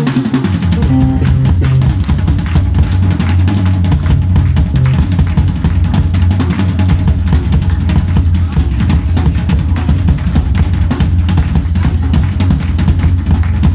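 Live blues band playing, with the drum kit to the fore: a steady run of kick, snare and cymbal hits over a continuous low bass line.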